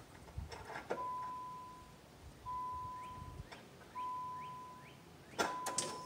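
A 2003 Nissan Sentra's dashboard warning chime dinging three times, about one and a half seconds apart, each a single steady tone that fades, as the ignition is switched on. A few sharp clicks follow near the end.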